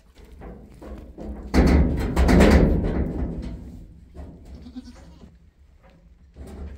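A goat bleats loudly, one drawn-out call that starts suddenly about a second and a half in and fades over about two seconds. A low rumble runs underneath.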